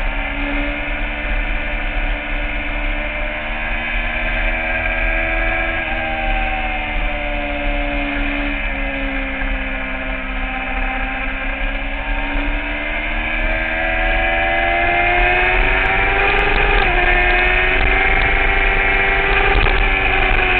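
A 2009 Kawasaki ZX-6R's inline-four engine running hard on track, heard from the bike over a low rumble. Its pitch sags and then climbs steadily through most of the stretch, with a brief dip about two-thirds through, and falls away at the end.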